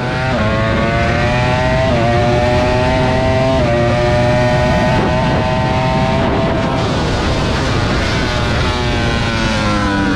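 Ducati Panigale V4 R racing superbike's V4 engine at full throttle, heard onboard: the pitch climbs through the gears with quick upshifts about two and three and a half seconds in, then drops away near the end as the throttle closes for a corner.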